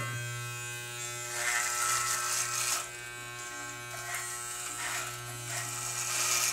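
Corded electric hair clippers buzzing steadily, with rougher rasping surges each time the blades are pushed through a thick beard: several passes, from about a second in to the end.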